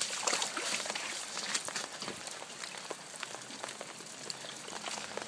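Running floodwater with a steady hiss and many small drips and patters throughout.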